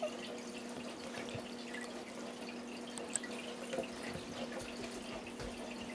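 Quiet room tone: a steady low electrical hum with a few faint small ticks and rustles from hands handling a small bar of soap and a sticker.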